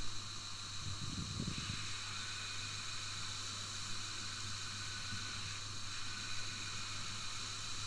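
Vormac Vortex precision belt grinder running with its abrasive belt grinding the edge of a steel knife blade: a steady hiss over a low motor hum.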